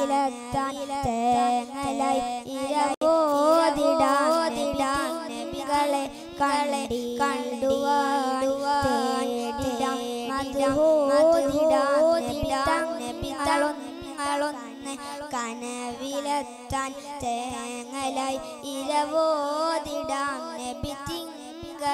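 A boy singing into a microphone through a PA: a wordless, ornamented melodic line with vibrato, opening a Malayalam devotional song in praise of the Prophet, over a steady low backing tone.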